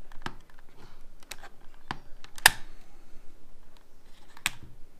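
Scattered sharp plastic clicks and taps from red plastic pry tools working on a car instrument cluster's parts. The loudest snap comes about two and a half seconds in, with another sharp click near the end.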